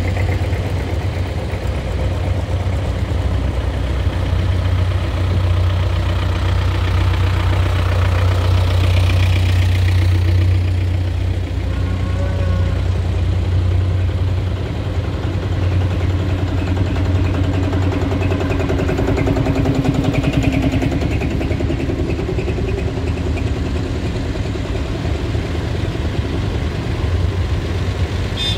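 Vintage farm tractors driving slowly past one after another, their engines running with a low, steady beat that grows louder as each one comes close.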